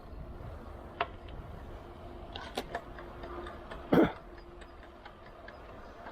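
Clicks and knocks from a road bike and its handlebar camera mount over a steady low rumble. There is a sharp click about a second in, a quick cluster of clicks, and one loud knock about four seconds in, followed by a run of light, evenly spaced ticks.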